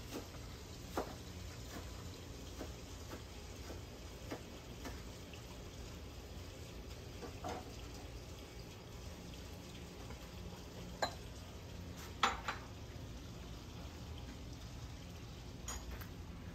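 Outdoor cooking with a pot of water on the boil: a steady low rumble, with a few scattered clinks and knocks of pots and utensils, the loudest a little past the middle.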